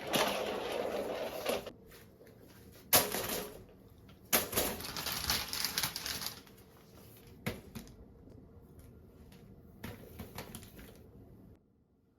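Rustling and clicking of things being handled close by: three bursts of crinkly noise in the first six seconds, with scattered sharp clicks, then quieter handling.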